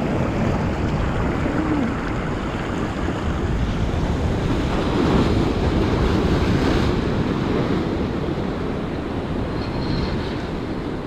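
Ocean surf breaking and washing over jetty rocks close by, a continuous rush with a bigger wave crashing into spray about five to seven seconds in. Wind buffets the microphone.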